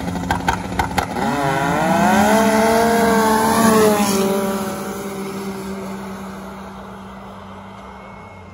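Race snowmobile engine at full throttle: its pitch climbs from about a second in as the sled accelerates, peaks as it passes close by about four seconds in, drops in pitch, then fades away down the track. A few sharp clicks come in the first second.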